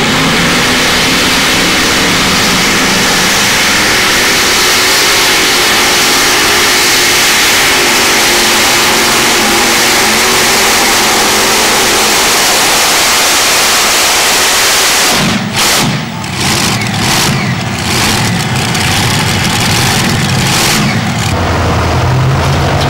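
Multi-engine modified pulling tractor running flat out under load, a loud, dense, steady engine noise. About fifteen seconds in, the sound breaks up unevenly as the engines come off full throttle, settling near the end into a steadier, lower running.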